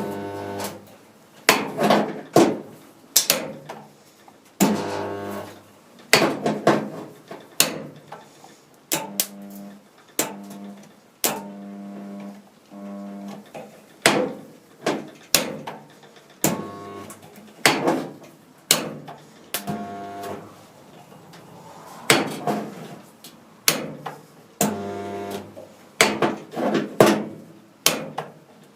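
Resistance spot welder joining steel body panels along a seam: a string of welds about every one to two seconds, each a short steady electrical hum from the welding transformer framed by sharp clicks of the tongs clamping and releasing.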